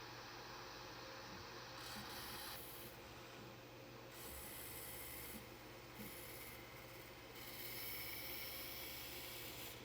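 Low rasping and rubbing of a milling cutter carving a small relief into the shotgun prop's stock part, the texture changing abruptly several times, over a steady low hum.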